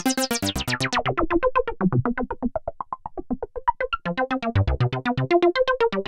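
DinoPark DSP synthesizer's Pro-12 (Prophet-5 model) playing a preset as a fast arpeggio of short plucky notes, about ten a second. The tone is bright at first and darkens sharply within the first second as the filter closes.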